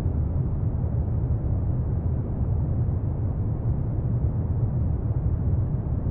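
Steady deep rushing noise, heaviest in the low rumble and dull at the top, with no notes, strikes or changes: a brown-noise-like sleep ambience bed.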